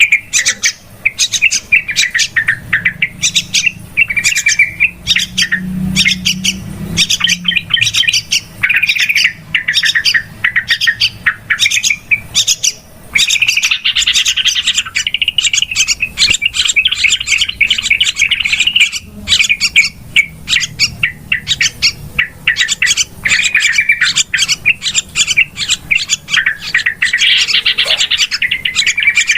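Yellow-vented bulbuls (trucukan) calling in a rapid, unbroken stream of short chattering notes, a noisy lure call (suara pikat) used to draw the birds in.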